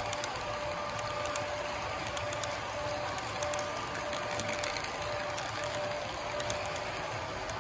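HO scale model covered hopper cars rolling past on track: a steady rolling rumble with irregular clicks as the wheels cross rail joints, and a thin steady whine.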